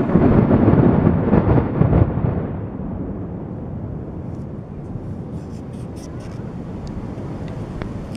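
Aerial fireworks shells bursting: a run of heavy booms over the first two seconds rolls into a long rumbling echo that slowly fades, with a few sharp crackles about five to six seconds in.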